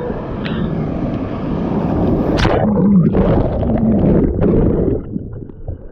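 Breaking wave's whitewater washing over a GoPro at water level: a loud, churning rush of turbulent water on the microphone, easing about five seconds in.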